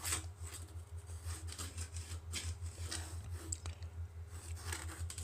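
Pencil lead scratching around a rocket body tube along the edge of a 3D-printed alignment tool, marking a ring, in short irregular strokes over a steady low hum.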